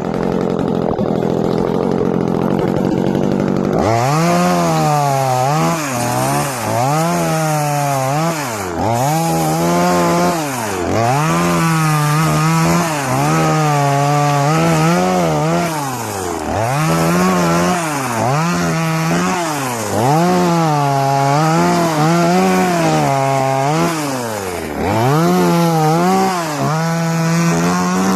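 TimberPro two-stroke top-handle chainsaw running hard while limbing branches off trees. It holds a steady high pitch for about four seconds. After that it drops off and revs back up to full throttle again and again, roughly every one to two seconds, between cuts.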